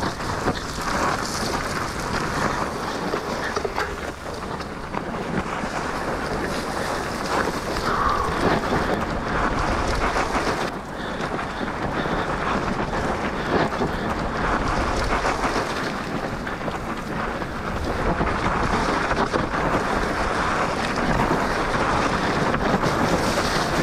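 Downhill mountain bike tyres sliding and scraping through loose dirt, with the bike rattling over the rough ground under heavy wind noise on the microphone. The noise is continuous and gets a little louder over the last several seconds.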